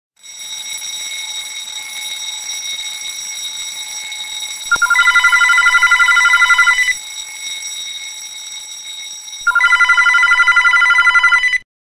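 A telephone ringing twice, each ring a loud fast trill about two seconds long, the second starting about two and a half seconds after the first ends, over a steady high-pitched electronic alarm tone.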